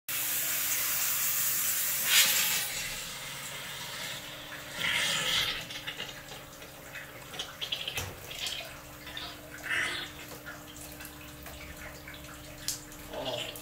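Steam hose jetting steam with a loud, even hiss for the first two and a half seconds, then quieter, with shorter hissing bursts about five and ten seconds in and a few small clicks, as the steam is fed into a frozen hot-water pipe to thaw it. A faint steady hum runs underneath.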